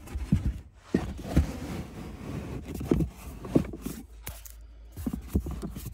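Rubber insert being fitted into a side well of a car's rear trunk trim: irregular scraping with a series of dull knocks as it is pushed and worked into place.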